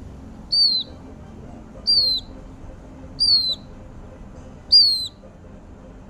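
Lapwing chick calling: four short, high peeps, each dipping in pitch at the end, repeated about every one and a half seconds.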